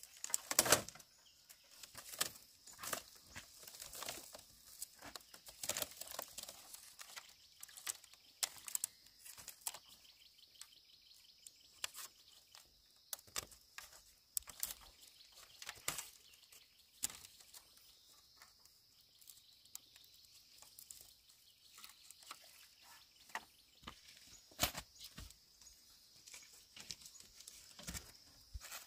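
Irregular light knocks and clicks, scattered unevenly, the loudest about a second in, over a faint steady high hiss.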